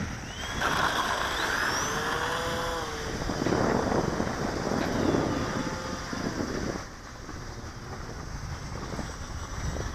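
Twin electric motors and propellers of an RC Durafly Cessna 310 model, spooling up with a rising whine about half a second in, then a steady propeller hum that grows fainter later on as the plane climbs away. Wind rumbles on the microphone throughout.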